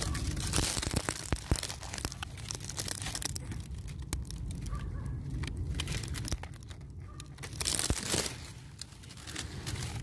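Squash plant leaves and stems rustling and crackling as squash flowers are picked by hand, with louder bursts near the start, around three seconds in and around eight seconds in. A steady low rumble runs underneath.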